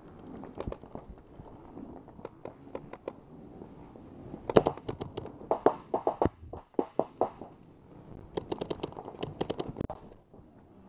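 Paintball markers firing: bursts of quick sharp shots, a single one early on, a loud rapid string about halfway through and another long string near the end.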